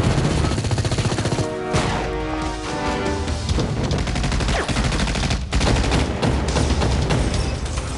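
Rapid automatic gunfire in a film gunfight, mixed over the film's music score.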